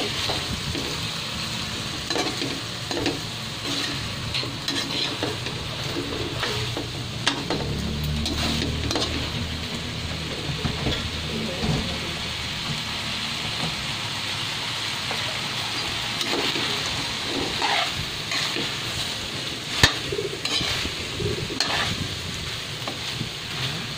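Chicken pieces and corn kernels sautéing in a metal pan with a steady sizzle, while a metal spatula stirs and scrapes against the pan. One sharper clank of the spatula on the pan comes near the end.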